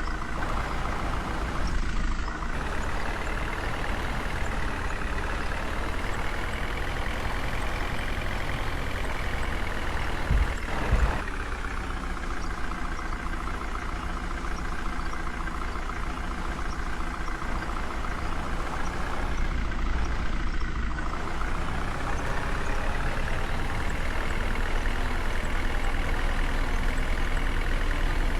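Diesel engine of a JCB 3DX backhoe loader running under working load, its pitch rising and falling twice as the hydraulics work, with a short knock about ten seconds in.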